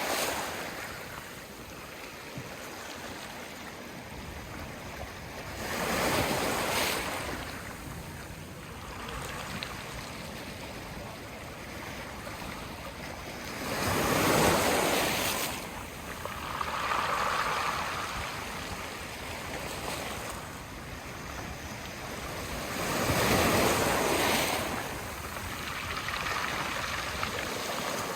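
Sea waves washing in on the shore, swelling and falling back about every eight seconds over a steady wash of surf; the loudest surge comes about halfway through.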